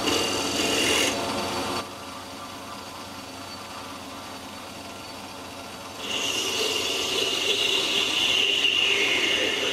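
Metal lathe turning a metal blank with a tool cutting it, giving a high, steady whine. The cut stops a little under two seconds in, leaving the lathe running more quietly, and a second cut with the same whine starts about six seconds in.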